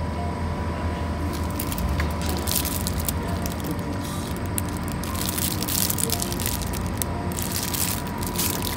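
Crinkling and rustling of a jar's cellophane wrapping as it is handled, in several short spells, over a steady low hum.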